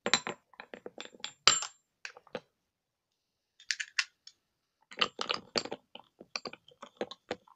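Small hard objects clinking and clattering on a desk as things are rummaged through and set down: quick runs of sharp clicks, one bunch at the start and another about five seconds in, with a short rattle between.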